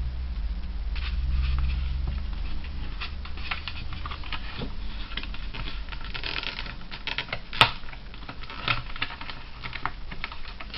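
Rapid small plastic clicks, taps and scrapes as a wheel is forced against the plastic wheel brace of a 1960s Century 21 toy Moonship, with one sharper click about three quarters of the way through; the wheel is stuck and does not come free.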